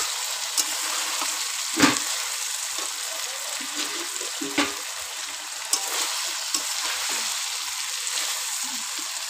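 Country-chicken and potato curry sizzling in oil in a metal kadai while a metal spatula stirs it, scraping and knocking against the pan a few times, loudest about two seconds in.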